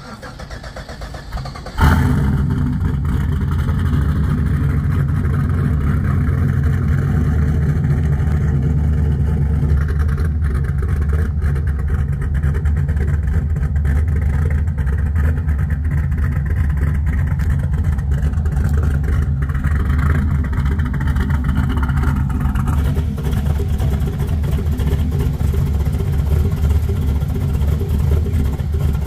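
1969 Chevrolet Camaro's engine firing up about two seconds in, then idling steadily.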